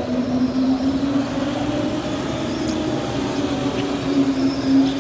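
Go-karts running around an indoor track: a steady low hum over a noisy bed, with a thin high whine that comes and goes as the karts pass.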